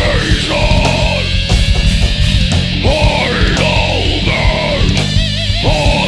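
Recorded thrash/hardcore metal music: a full band with heavy distorted electric guitars, playing steadily and loud.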